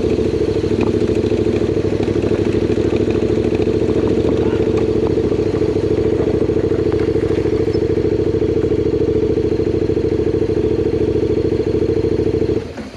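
Adventure motorcycle's engine running steadily at low speed, holding an even note, then stopping abruptly near the end.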